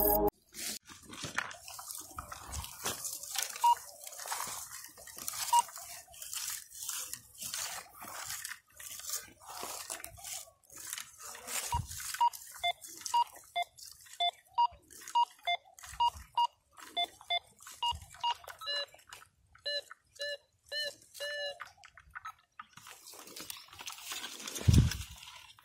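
Metal detector giving short beeps as its search coil is swept over ground, the detector's signal that metal lies beneath. The beeps come about twice a second through the middle, and the later ones are lower-pitched, under a running crackle of dry grass and stubble. A low thump near the end.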